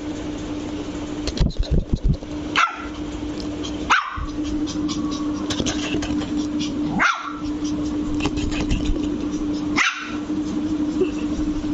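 Lhasa Apso puppy giving four short, high-pitched barks a few seconds apart, over a steady low hum.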